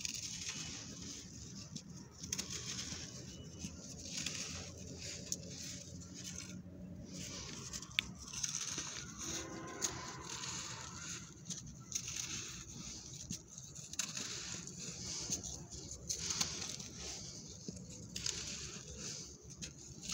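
Hardened clumps of dry sand being squeezed and crumbled by hand, giving crunchy, grainy crackles in irregular bursts with scattered sharp clicks as pieces break off.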